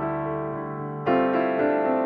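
Background piano music: held chords, with a new chord struck about a second in.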